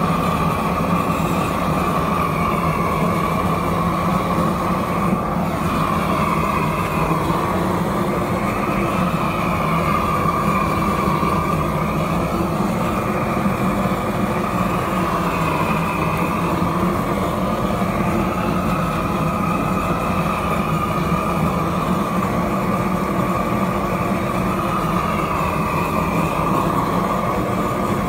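Propane roofing torch burning steadily, a constant rushing flame noise whose pitch wavers slowly as the torch is swept over ice on stone pavers.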